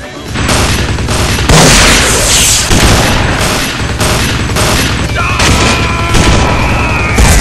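Gunfire sound effects in rapid repeated shots, with a loud blast about a second and a half in. A long yell comes in over the shooting in the second half.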